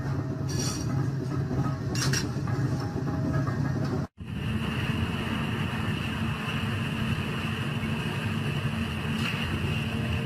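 Machinery running steadily, with a couple of short metallic clinks in the first few seconds. After an abrupt cut about four seconds in, a steady machine whine holds one high tone over a low hum.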